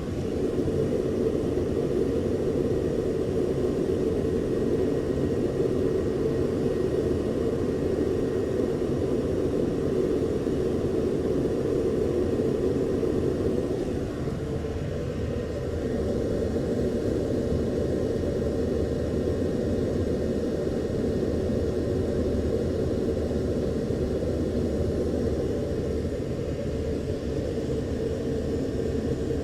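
Steady aircraft engine rumble with no speech over it, easing slightly about fourteen seconds in.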